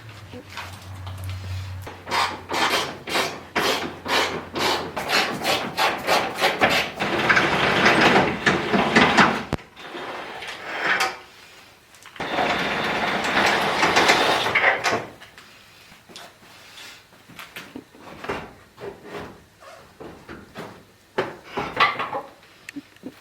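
Hand-tool work on the front bumper's mounting bolts: runs of rapid metallic clicks and knocks, then two stretches of steady scraping, with scattered knocks near the end.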